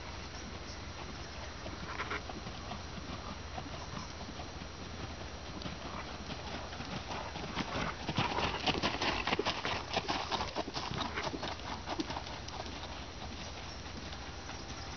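A Thoroughbred gelding trotting under saddle on a gravel-and-sand arena, its hooves knocking in a steady rhythm. The hoofbeats grow loud from about halfway through as the horse passes close by, then fade again.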